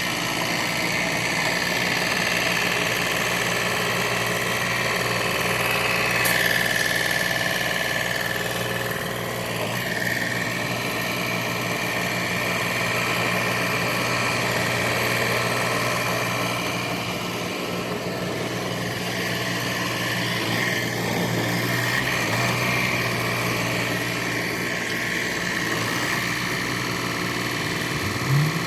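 Vermeer SC48TX stump grinder running steadily under power, its engine drone carrying a steady high whine.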